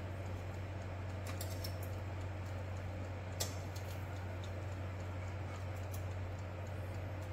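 Metal tongs clicking lightly against a wire oven rack and pieces of grilled pork as they are turned, a few separate clicks with the sharpest about three and a half seconds in, over a steady low hum.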